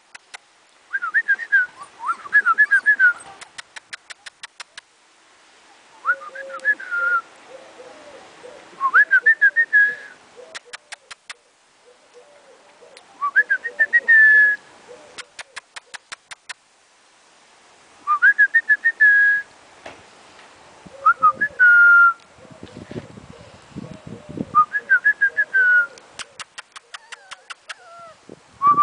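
Golden retriever puppies whining and squealing in short high-pitched bouts every three to four seconds, with lower squeaky whimpers in between. Brief runs of rapid clicking come and go.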